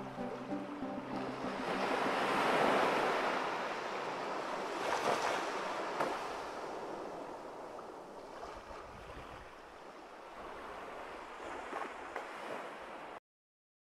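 Ocean surf: the rushing noise of a breaking wave swells over the first few seconds, surges again, then slowly fades and cuts off suddenly near the end. The last notes of music die away at the very start.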